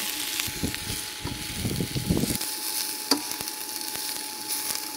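Bok choy, bean sprouts and mushrooms sizzling in hot oil as they are stir-fried, with a run of scraping and clattering strokes against the pan during the first half and a single sharp click about three seconds in.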